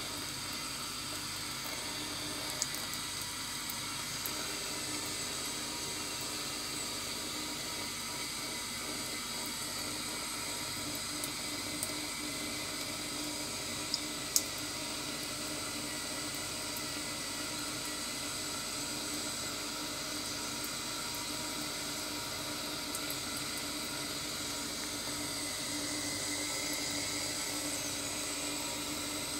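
A thin stream of tap water running steadily into a stainless steel kitchen sink, with a few sharp ticks, the loudest about fourteen seconds in.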